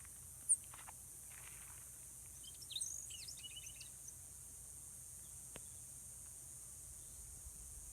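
Quiet outdoor ambience with a steady high hiss and faint low rumble. Birds chirp: one sharp high note about half a second in, then a short flurry of chirps about three seconds in.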